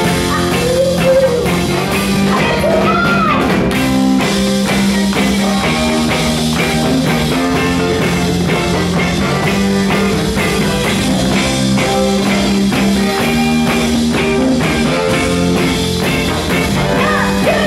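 Live soul band playing a song: electric guitars, bass, drums and saxophones, with a woman singing lead over them.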